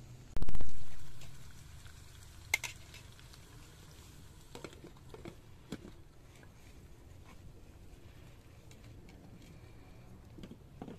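A heavy low thump about half a second in, fading over about a second, then a sharp clink and a few light taps as glass pot lids with metal knobs are handled and set on cooking pots over a wood fire.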